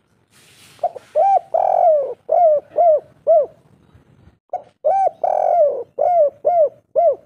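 Spotted dove (tekukur) cooing two phrases. Each opens with a short note and a coo, swells into one long coo, then ends in three short 'kuk' notes, the 'kuk 3' call type.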